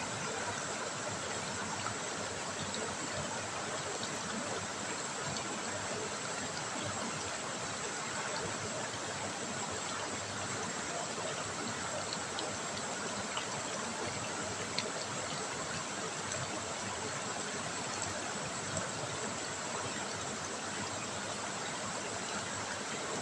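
River water running and trickling over stones, a steady even rush with a few faint drips and ticks.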